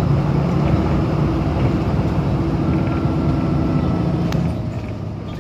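Steady low rumble of a vehicle's engine and road noise, heard from on board while driving along. It eases briefly near the end, and there is one sharp click about four seconds in.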